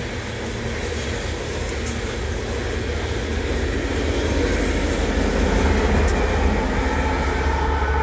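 Loaded coal train's gondola cars rolling past: a steady low rumble and rattle of steel wheels on the rails, growing louder from about halfway through.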